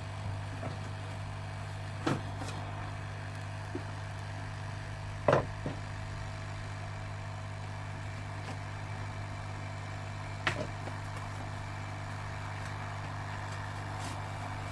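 Steady hum of electronics-repair bench equipment, with three sharp small clicks of tools, about two, five and ten seconds in; the middle click is the loudest.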